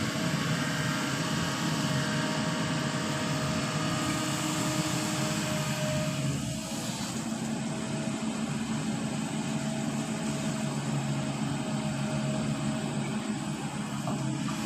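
Long-arm excavator's diesel engine running steadily, dipping slightly in level about six seconds in.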